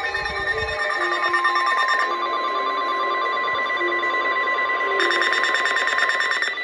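NOAA Weather Radio Emergency Alert System signalling. A steady high warning alarm tone, the 1050 Hz NWR alert tone that announces a warning, comes in about a second in. In the last second and a half a harsh buzzing burst of SAME digital header data joins it.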